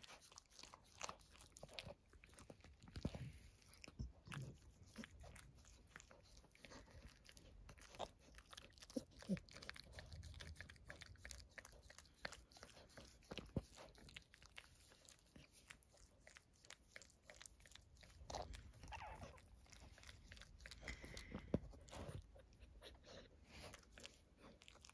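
Mother dog licking and nibbling her newborn puppy clean, a faint run of irregular wet licking and mouthing clicks.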